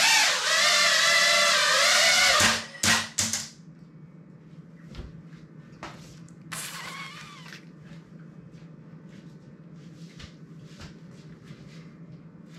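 Small FPV quadcopter's electric motors and propellers whining, the pitch rising and falling with the throttle, then a few short blips before the motors stop about three and a half seconds in. After that, faint scattered clicks and a brief rustle over a low steady hum.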